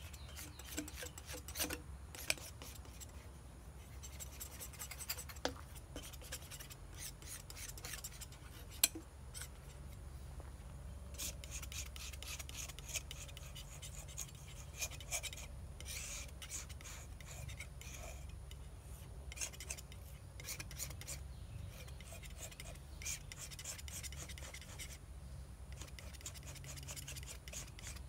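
Steel palette knife scraping and spreading paint on a painting panel in short, repeated strokes, with an occasional sharper tick of the blade.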